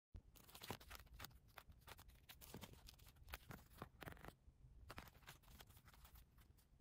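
Faint rustling and crinkling of clear plastic binder pouches, banknotes and a paper sticker sheet being handled, with many small clicks and taps. It starts suddenly and eases briefly a little past halfway.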